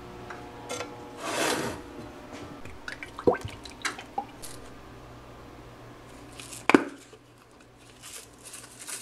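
Cooking oil poured briefly into a nonstick frying pan on an electric stove, among light clicks and knocks of bottles and cookware, with one sharp knock about two-thirds of the way through.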